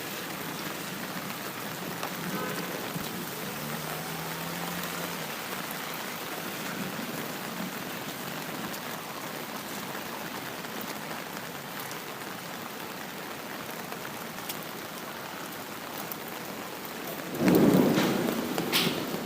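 Steady rain falling in an even hiss. Near the end comes a sudden, loud crack of thunder lasting about a second and a half, the loudest sound.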